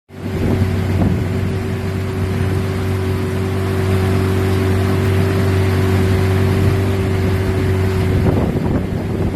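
An engine running steadily with a low hum, its higher tone dropping away near the end, over a rushing noise.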